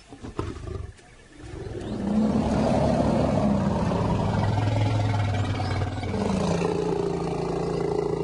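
Long, deep call of a large animal, a low drawn-out rumble that builds about a second in, holds steady for several seconds and shifts in pitch near the end.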